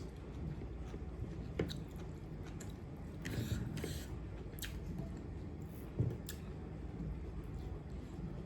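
A person chewing food close to the microphone, with scattered sharp clicks and a brief louder noisy stretch about three and a half seconds in.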